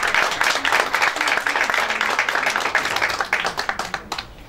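Audience applause: many hands clapping together, dying away about four seconds in.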